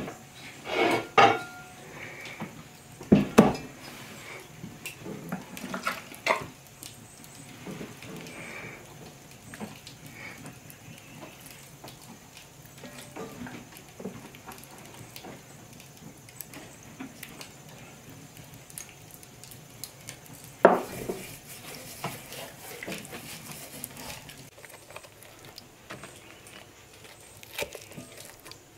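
Cast iron pot and kitchen utensils knocking and clinking, with four louder clatters spread through and quieter scraping and handling of bread in the pot between them.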